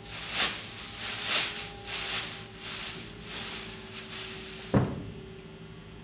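Rustling of a tied cloth-wrapped bundle being handled on a wooden table, in several swells, then a single sharp knock near the end, over a steady electrical hum.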